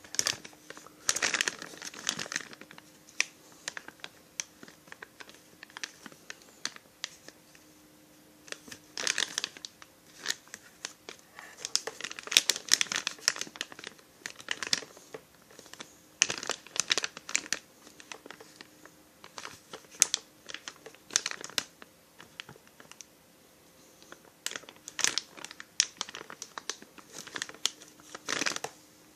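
Packaging crinkling and rustling in irregular bouts as chainsaw kit parts are unwrapped and handled, over a faint steady hum.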